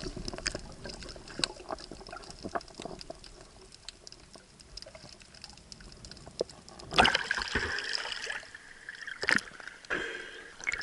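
Muffled water sound recorded with the camera held under water. Faint scattered clicks and crackles come first, then a louder rush of water about seven seconds in, another short one about two seconds later, and splashing as the camera breaks the surface near the end.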